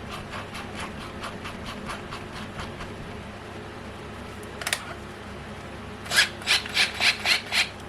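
Small hand tool rasping against the diecast model in short repeated strokes. The strokes are faint at first, then a single click comes, then six louder strokes at about four a second near the end.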